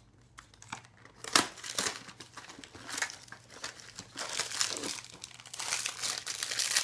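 Plastic wrapper of a packet of milk chocolate digestive biscuits crinkling and crackling as it is pulled and torn at by hand, a packet that is hard to open. The crackling is sparse at first and grows denser and louder in the second half.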